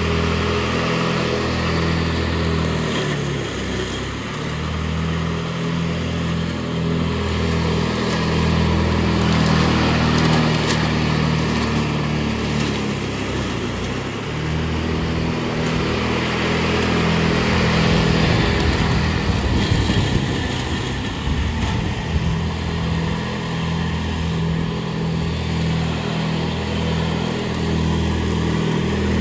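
Riding lawn mower engine running steadily, its loudness swelling and easing as it mows.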